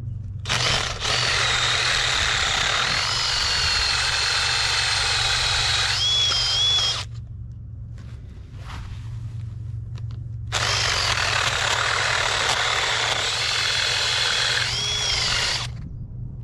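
Electric drill boring a hole into the bottom of a stone grave marker, in two runs of about six and five seconds with a short pause between, its motor whine dipping and rising as the bit loads in the stone.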